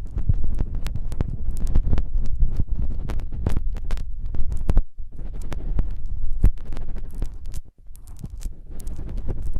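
Close-microphone ASMR ear sounds: irregular rubbing and crackling with a low throbbing rumble, as something is worked directly over the ears of a microphone. It breaks off briefly twice, most sharply about three-quarters through.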